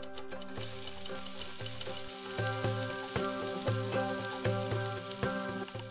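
Sliced onions and whole spices sizzling in hot olive oil in a cooking pot, the sizzle starting about half a second in as the onions go into the oil, while being stirred with a wooden spoon. Background music plays underneath.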